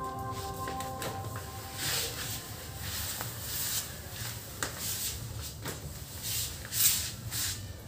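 Irregular household handling noises: scattered clicks and knocks with rubbing swishes, the loudest near the end, over a faint steady low hum.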